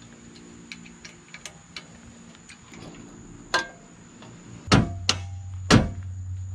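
Steel tube door and its loosened hinge on a Jeep Gladiator clicking and knocking as the door is wiggled into line and pushed toward the body, with two loud metal knocks near the end. The door does not yet close, so the hinge is being realigned.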